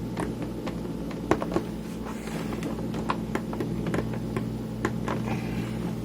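Scattered small clicks and taps of hands and a tool working on the plastic and metal parts of a Tascam Portastudio 414 MKII cassette multitrack during disassembly, over a steady low hum.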